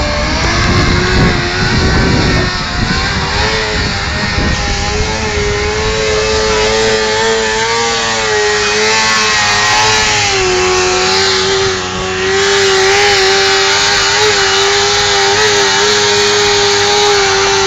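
Suzuki GSX 600 inline-four engine held at high revs during a burnout, the rear tyre spinning on the pavement. The revs stay high and steady with small wobbles, dipping briefly about twelve seconds in.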